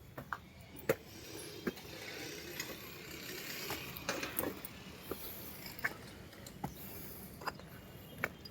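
Irregular light clicks and knocks, about a dozen, over a faint steady hiss: hand work on a building site.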